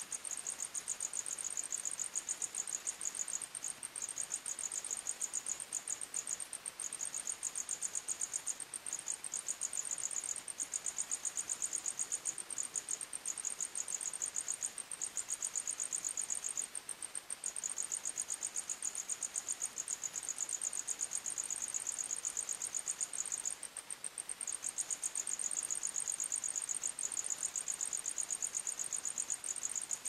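Crickets chirping in a fast, continuous pulsing trill at two slightly different high pitches. The lower-pitched chirping stops briefly a few times while the higher one carries on.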